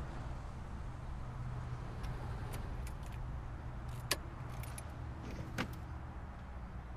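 Car keys jingling and a scatter of small clicks inside a Toyota hatchback, with two sharper clicks about four and five and a half seconds in, the last as the driver's door unlatches and swings open. A low steady rumble runs underneath.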